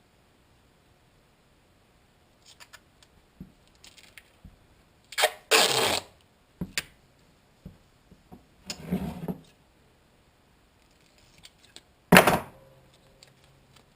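Duct tape being pulled off the roll and handled as strips are laid down. There are a few separate ripping and rustling noises: a longer rasp about six seconds in and the sharpest one near the end, with small ticks and taps between them.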